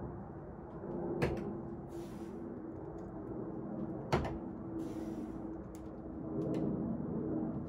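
Dry-tooling ice axes knocking onto holds as a climber makes long moves up a training wall: two sharp knocks, about a second in and about four seconds in, the second louder. Short bursts of hiss come between them over a steady hum.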